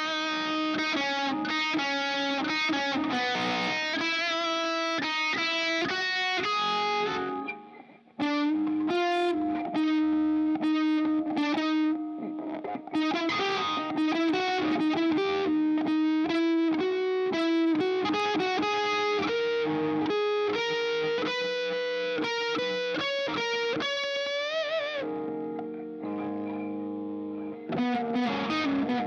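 Overdriven electric guitar, a Fender Stratocaster played through a Strymon Iridium amp simulator, playing fast melodic lead runs. It breaks off briefly about eight seconds in and moves to held notes near the end.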